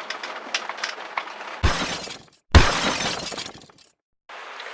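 Light rattling, then two loud crashes about a second apart, the second louder, each dying away within about a second.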